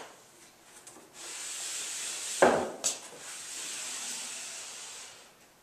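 A large whiteboard being slid aside across another board: a long rubbing scrape of about four seconds, with a knock and a click near the middle.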